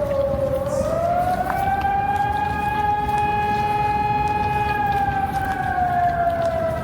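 Hörmann ECN 1200 electronic civil-defence siren sounding a wailing tone. It dips low about half a second in, rises and holds high for a few seconds, then slowly falls again.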